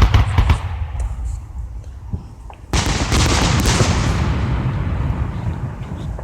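Aerial fireworks exploding: a sharp bang right at the start over a low rumble, then a loud burst just under three seconds in that trails off slowly over the next few seconds.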